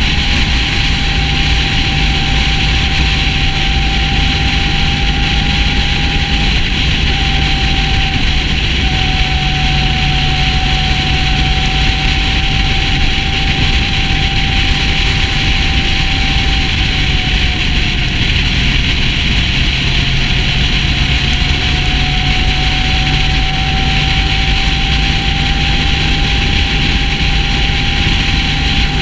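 Sport motorcycle cruising at highway speed: a steady engine drone under heavy wind and road noise on the fairing-mounted camera. The engine note sags a little past the middle and climbs back.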